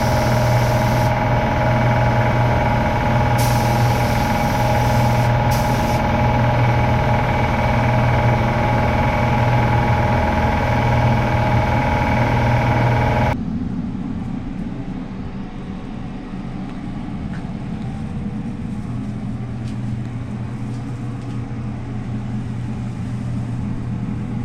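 A machine hums steadily, with a few brief bursts of hissing air in the first few seconds. About halfway through, the sound cuts abruptly to a quieter, lower hum.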